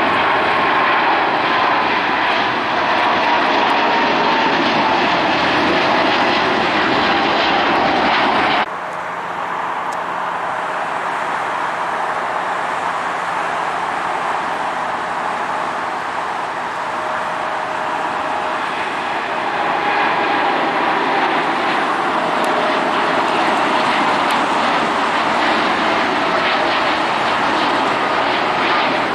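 Jet airliners taking off: a Boeing 777 freighter's twin turbofans at takeoff thrust, with a whine that slowly falls in pitch. About nine seconds in the sound cuts suddenly to a Boeing 787-10 Dreamliner departing, quieter at first and growing louder near the end.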